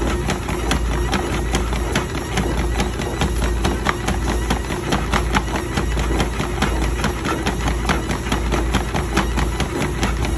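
DogPacer dog treadmill running with a steady motor hum, with the quick, regular thuds of a black retriever's paws trotting on the moving belt.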